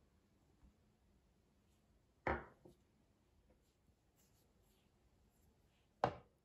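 A metal fork stirring dry flour in a wooden bowl. Mostly quiet, with two short knocks or scrapes of the fork against the bowl: one about two seconds in and a sharper one near the end.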